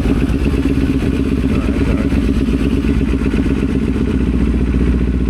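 Kawasaki Ninja 500 motorcycle engine running steadily, its low rumble growing stronger about four seconds in.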